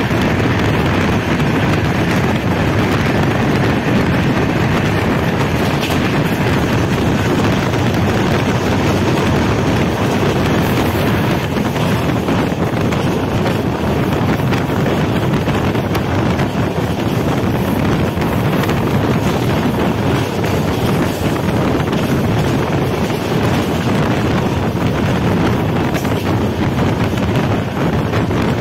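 Express passenger train running at about 130 km/h, heard from beside the coach: a steady, loud running noise of wheels on rails, mixed with wind on the microphone.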